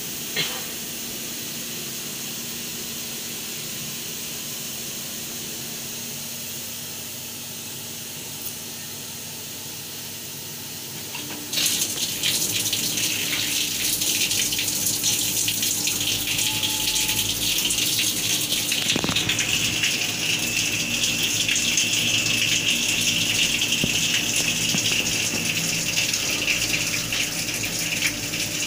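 CNC milling machine humming steadily, with a brief sharp sound just after the start. About eleven seconds in, the flood coolant is switched on by the M08 coolant-on code and sprays from the flexible nozzle in a loud, steady gush of liquid.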